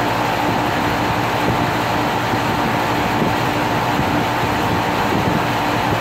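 2001 Carrier 5-ton central air conditioner running steadily: an even rushing hum from the outdoor unit's fan and compressor, with a steady mid-pitched tone over it.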